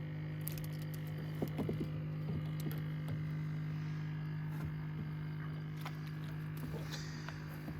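A steady low hum with a few faint scattered clicks.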